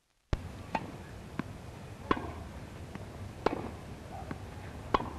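Tennis ball struck back and forth by rackets in a doubles rally: about half a dozen sharp pocks, some coming quickly in succession, over the steady hiss of an old film soundtrack.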